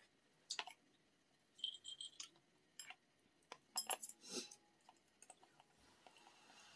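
Quiet, scattered clicks and light clinks of chopsticks against an instant ramen cup and a bowl during eating, with soft noodle slurping toward the end.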